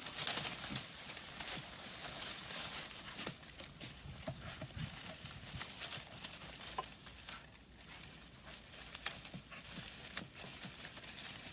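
Beagles searching through snow and dry leaves: scattered faint crunching and rustling, with a couple of brief faint whines.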